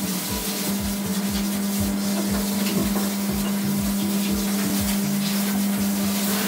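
Water spraying from a handheld shower head onto a wet dog's coat, rinsing off shampoo: a steady hiss of spray with a steady low hum underneath.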